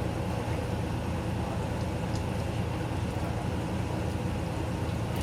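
GE Filter-Flo top-load washing machine running, a steady, unbroken mechanical drone from its motor and drive as it works through its agitate or spin cycle.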